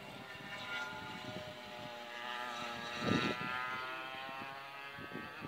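A racing go-kart engine running on the track at a distance, its pitch rising and then falling as it revs through the laps. There is a brief low thump about three seconds in.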